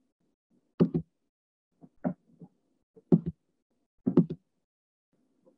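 Repeated knocking: pairs of sharp knocks coming about once a second, five times.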